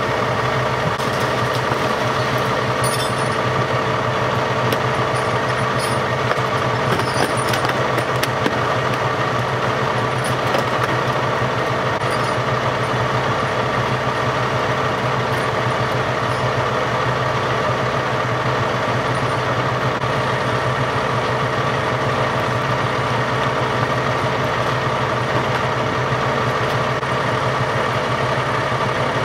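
An engine running steadily at idle, a constant drone that does not change in pitch or level, with scattered light clicks and clinks during the first dozen seconds.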